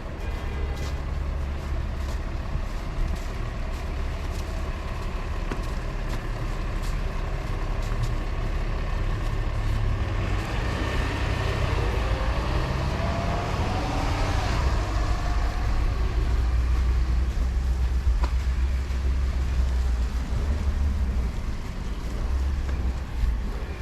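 Road traffic on a snowy city street: a steady low rumble, with a vehicle passing that swells and fades about halfway through.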